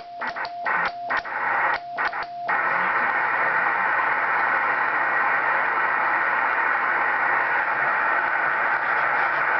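Morse code sidetone from a ham radio transceiver, keyed by hand with a straight key made from a back scratcher, sending the last dots and dashes of a CQ call over receiver hiss. The keying stops about two and a half seconds in, leaving steady band noise from the receiver while it listens for a reply.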